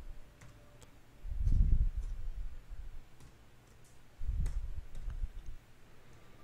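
Computer keyboard keys clicking faintly and sparsely as a filename is typed. Two dull, low bumps stand out, at about a second and a half in and again at about four and a half seconds.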